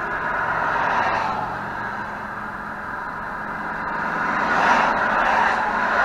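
Highway traffic passing close by: a steady rush of tyre and engine noise that swells as vehicles go by, once about a second in and again from about four seconds on.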